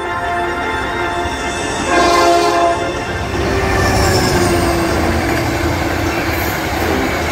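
Trains passing close by: a diesel locomotive horn sounds over the heavy rumble and clatter of a train going past. The horn note sags slightly in pitch near the middle.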